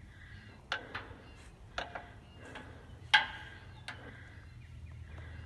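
Several sharp metallic clicks and knocks as a lock is hooked into the lock box on a steel bunker hatch, the loudest about three seconds in.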